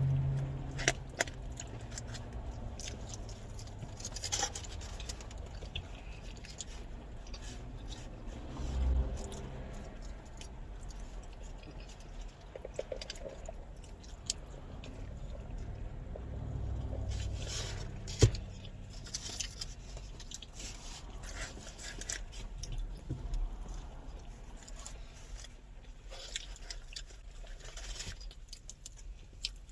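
People chewing and eating carne asada fries, with scattered small clicks and scrapes and one sharper click a little past halfway.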